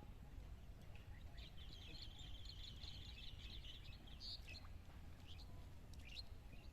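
Birds chirping: a fast run of high chirps from about one and a half to four seconds in, then a few single calls, over a faint low steady rumble.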